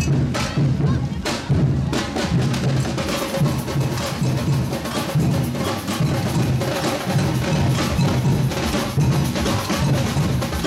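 Carnival percussion music: drums beating a steady, driving rhythm, with sharp struck hits over the top.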